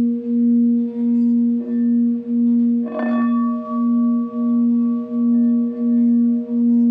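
Quartz crystal singing bowl sounding a sustained low tone that swells and dips about one and a half times a second. About three seconds in, a brief strike adds a higher ringing tone.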